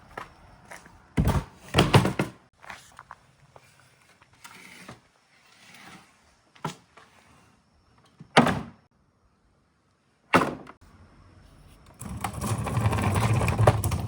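Glass marbles (bī-dama) running through a marble run: sharp clacks as they drop and strike the track, with scattered small ticks between, then a steady rattle of marbles rolling for about two seconds near the end.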